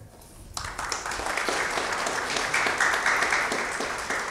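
Audience applauding, starting about half a second in as a dense patter of many hand claps.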